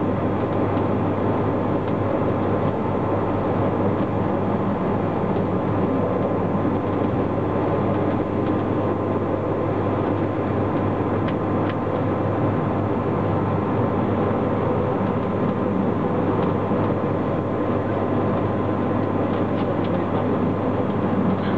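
Running noise of the GoldenPass Panoramic electric train heard from the seats at the front of the carriage: a steady rumble with a low hum as it rolls along the track, and a few faint clicks about halfway through and near the end.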